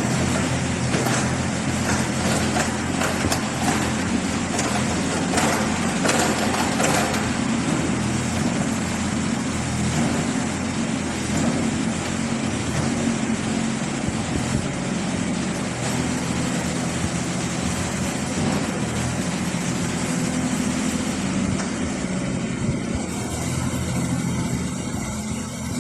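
Yanmar diesel engine of a Shanyi SY25-5 compact excavator running steadily while the machine is worked, with a few knocks in the first several seconds.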